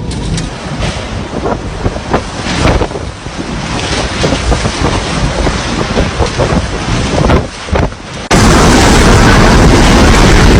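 Typhoon-force wind buffeting the microphone, a heavy rush with many short knocks and rattles. About eight seconds in it jumps abruptly to a much louder, steady rush.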